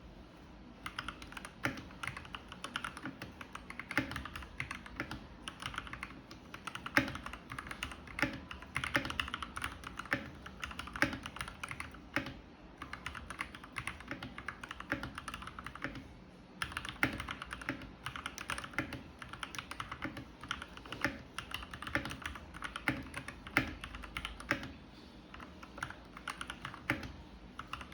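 Typing on a Keychron K2 V2 mechanical keyboard with Gateron Red Pro linear switches: a fast, continuous run of key clacks, broken by a few short pauses.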